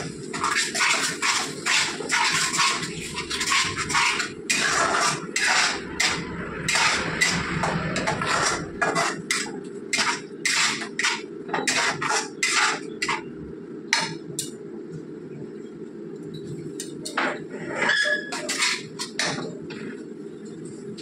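Metal spatula scraping and knocking against a non-stick kadai while stirring a thick masala of onion paste, yogurt and nut paste as it is fried down. The strokes are quick and dense for the first several seconds, then sparser with a short lull, over a steady low hum.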